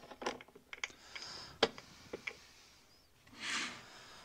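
Faint, scattered clicks and light metal taps of a chainsaw's guide bar and chain being handled and fitted by hand, with a short soft hiss about three and a half seconds in.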